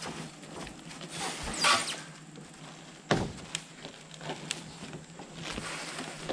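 Handling of a plastic-wrapped stack of rigid foam insulation boards: the stretch wrap rustles, then comes a sharp thump about three seconds in, followed by a few light clicks and knocks.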